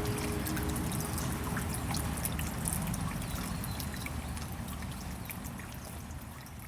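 A stream of water trickling, with many small sharp drips of rain through it, fading out gradually.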